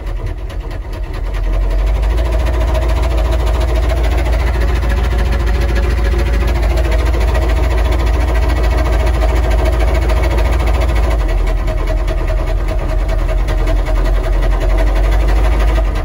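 Humvee diesel V8 engine running loud inside the cab, rising about a second and a half in and holding steady, with a hard knock in it: rod knock, with what the driver calls like no oil pressure.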